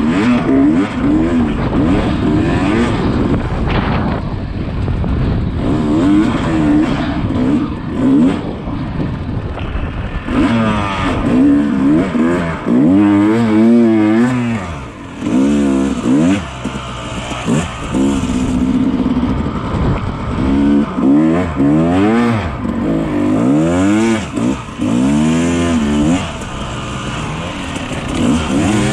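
Yamaha YZ250 two-stroke dirt bike engine being ridden hard off-road, revving up and dropping back over and over as the throttle is worked through gear changes.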